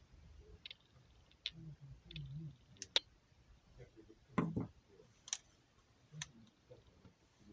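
Irregular sharp clicks and light knocks of small hard parts being handled, with one heavier knock about four and a half seconds in, from work on an Ares L85A3 airsoft rifle's quick-change spring system.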